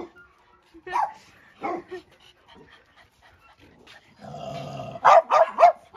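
Dogs barking during rough play: two short barks in the first two seconds, then three loud barks in quick succession near the end over a steady rumble.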